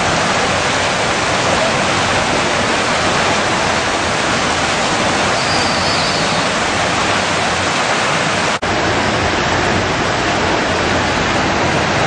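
Heavy rain pouring down in a steady, dense hiss, briefly cutting out about eight and a half seconds in.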